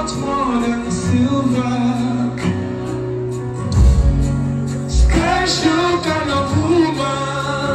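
Highlife band playing live while a male singer sings into a microphone, over a steady bass line with low drum thumps.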